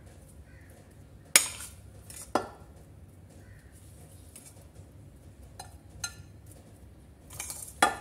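A metal spoon clinking against dishes as sliced strawberries are scooped out and spooned into place: about five sharp clinks, the loudest about a second and a half in and near the end.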